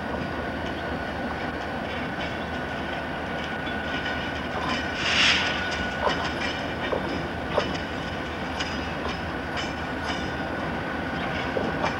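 Norfolk Southern diesel freight locomotives approaching slowly with their engines running, and wheels clicking over rail joints more and more often as they draw near. A short hiss comes about five seconds in.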